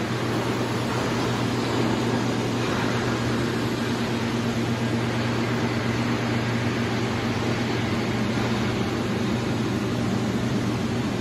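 Steady whir of cooling fans and running laser cladding equipment, with a low, constant hum underneath.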